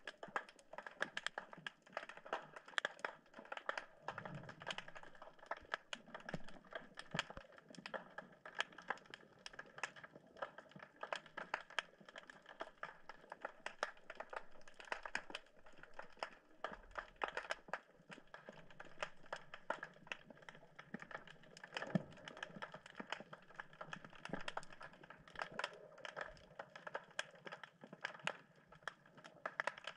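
Underwater crackling from snapping shrimp: a dense, irregular patter of sharp clicks that never stops.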